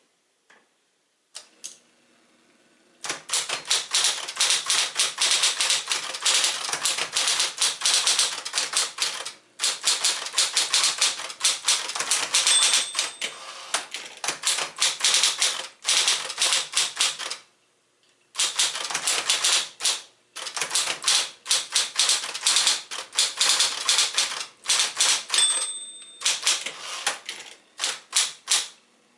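A 1966 Sears Celebrity 12 typewriter, built on Smith-Corona 5TE mechanics, typing in fast runs of key strikes broken by short pauses. Its margin bell rings briefly twice, at line ends.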